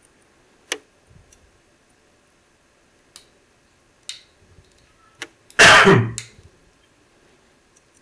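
Faint, scattered clicks of a hook pick working the pins of a Medeco Biaxial lock cylinder, about five in all. A short, loud noisy burst comes about five and a half seconds in.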